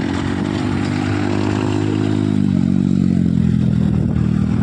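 A vehicle engine running close by, its pitch dropping about halfway through and then holding steady.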